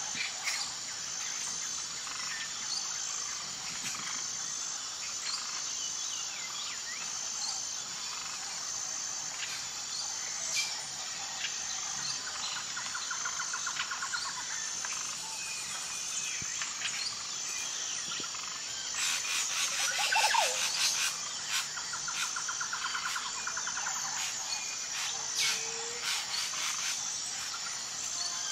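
Assorted bird calls and chirps over a steady, high-pitched insect chorus, with short rapid trills recurring. A burst of chirping about two-thirds of the way through is the loudest part.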